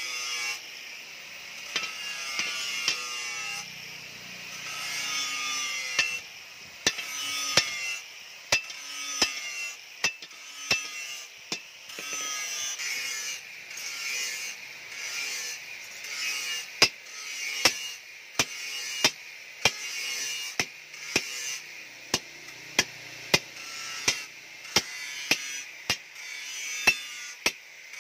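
Hand hammer striking the red-hot end of a steel leaf spring on a steel post anvil, folding it into a spring eye. The blows are sharp and come about once a second, a little faster in the second half, over a steady high hiss.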